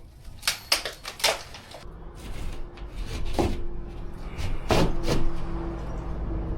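Sharp knocks and clatter of handling during drywall work, with a steady low hum coming in about two seconds in and two louder knocks in the middle.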